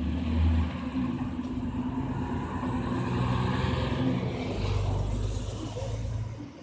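City bus engine running as the bus turns through the intersection and pulls away, over steady street traffic noise. Near the end a car's engine and tyres come close with a low rumble.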